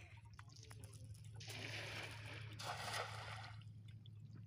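A wet fishing net being handled on a raft over water, with two spells of splashing rustle about halfway through, over a steady low hum.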